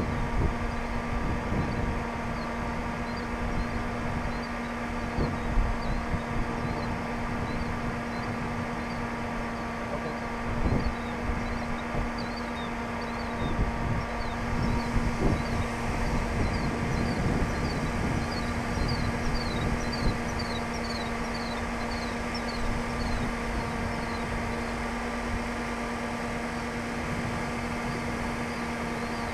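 Steady mechanical hum with a low pitch and even overtones, under gusty wind buffeting the microphone. In the second half, a string of quick, high, falling chirps.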